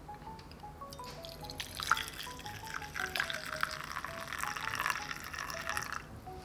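Pink liquid poured from a blender jar into a glass bowl, splashing and dripping, with a spatula scraping the jar, from about a second and a half in until just before the end; a sharp click near two seconds in is the loudest moment. A light tinkling melody of background music plays throughout.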